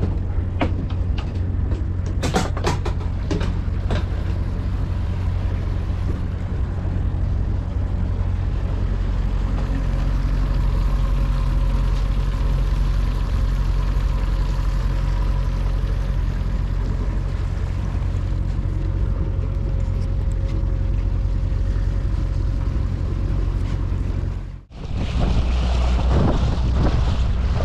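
An engine running steadily with a low, even hum, with a few sharp clicks or knocks in the first few seconds. Near the end the sound cuts out briefly and comes back as rougher wind and water noise.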